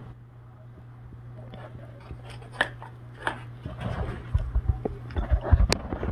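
Handling noises as plant pots or cuttings are moved about: scattered light clicks and taps, then a run of low thumps and knocks in the last couple of seconds, over a faint steady hum.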